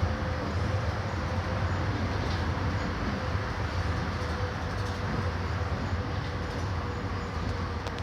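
Mercedes-Benz OF 1721 Euro 6 bus engine running steadily: a low, even drone with a thin steady whine above it and a wash of noise.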